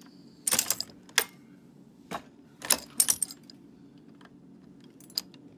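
Sharp metallic clicks and clinks from a Dillon 550 reloading press being worked, steel parts and brass 9mm cases knocking together. They come irregularly: a cluster about half a second in, more around two to three seconds, and a last click near the end.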